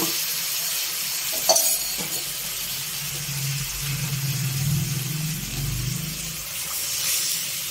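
Curry sizzling in a steel kadhai on the stove, a steady hiss throughout. About halfway through, water is poured from a plastic jug into a steel bowl, and there is a single sharp knock about a second and a half in.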